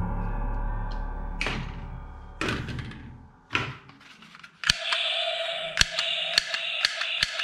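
Sharp mechanical clicks and thunks. About five seconds in, a steady tone starts, with clicks roughly every half second over it.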